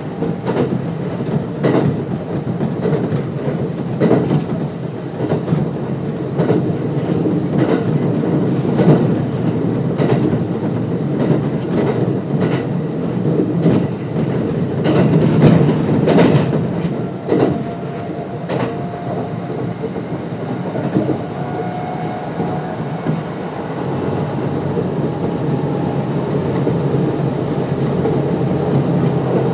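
Kintetsu 1259 series electric train with Hitachi GTO-VVVF inverter running, heard from inside the car: a steady rumble with the clickety-clack of wheels over rail joints. The clicks thin out in the second half and a faint whine comes in as the train nears its next station stop.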